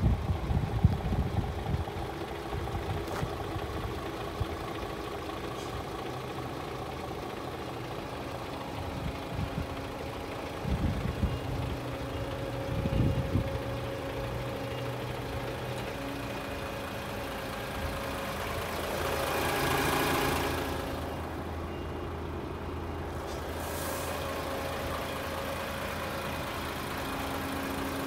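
Diesel engine of a DAF CF 460 tractor unit (Paccar 460 bhp Euro 6) idling steadily. A few brief low rumbles come in the first half, and a short rush of noise swells and fades about two-thirds through.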